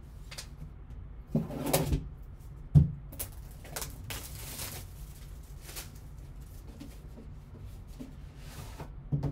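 Gloved hands handling a cardboard trading-card box: rustling and scraping as it is picked up and turned, a sharp knock a little under three seconds in as it is set down, a longer sliding hiss around four to five seconds, and another knock near the end.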